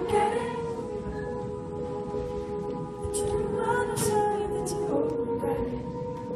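Live band playing a slow, quiet passage of long held notes with no singing, heard from within the audience.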